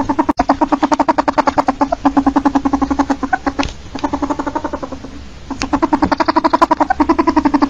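Ferret dooking: a rapid train of pitched clucking pulses, about ten a second. The clucking fades to a quieter lull just under four seconds in, then starts up again.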